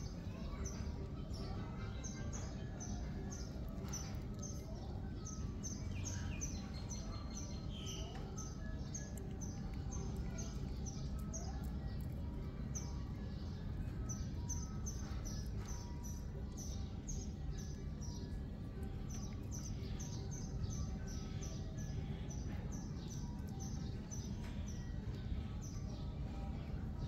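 Small birds chirping over a low steady outdoor rumble: short high chirps a few times a second, keeping on without a break.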